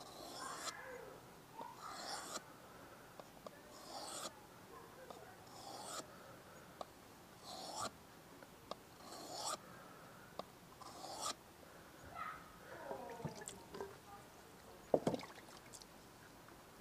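Mora knife blade being pushed across a wet 3000-grit waterstone: about seven scraping strokes, one every couple of seconds, then a sharp knock near the end.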